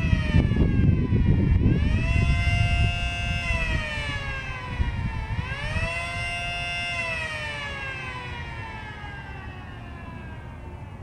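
Mini Model 5T miniature siren sounding a fast wail. Its pitch falls, climbs and holds twice, then slides down and fades as the rotor winds down.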